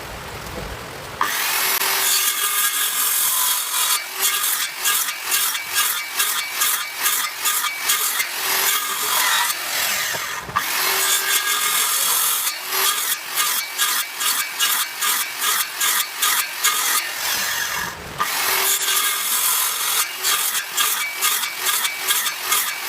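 A hand saw cutting wood in steady back-and-forth strokes, about two or three a second, cutting a tenon. The sawing stops briefly three times and then starts again.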